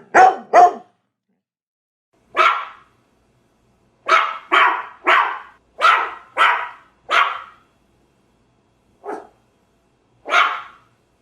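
Dog barking angrily in short, sharp barks. There is a quick run of two or three at the start, a single bark, then six barks at about two a second, and two more spaced-out barks near the end.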